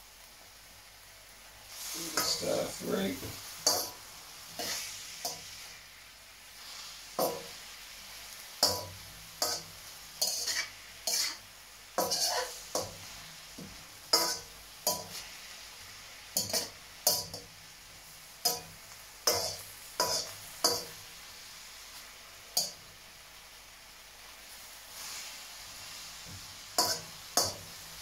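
Perforated metal spatula scraping and clacking against a steel wok as beef and vegetables are stir-fried, the food sizzling in the hot pan. The strokes come irregularly, about one a second, with a lull of a few seconds before the last few near the end.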